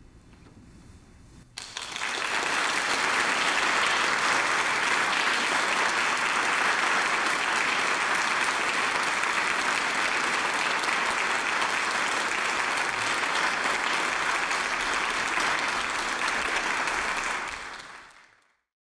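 Audience applauding, starting suddenly about a second and a half in after a short quiet moment, holding steady, then fading away near the end.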